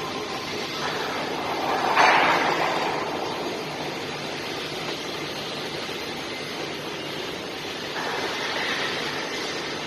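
Steady rushing workshop noise from a welding and fabrication shop, with a sudden louder swell about two seconds in that fades over a second, and a smaller rise near the end.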